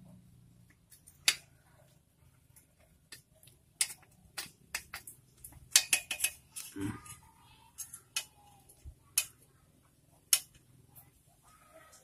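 Irregular sharp metallic clicks and taps from a wrench and bolts being worked on a motorcycle's exhaust and footpeg mounting. A few clicks are much louder than the rest.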